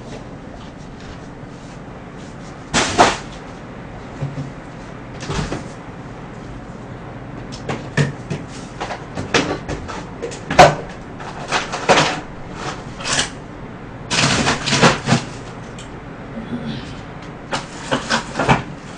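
Refrigerator-freezer door and containers being handled as a cup of shaved ice is put away. Scattered knocks and bumps, with a busier stretch of clatter about three quarters of the way through and more near the end.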